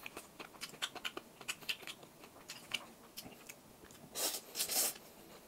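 Close-up eating sounds of spicy instant noodles: small wet mouth clicks of chewing, then, about four seconds in, two quick loud slurps as a mouthful of noodles is drawn in.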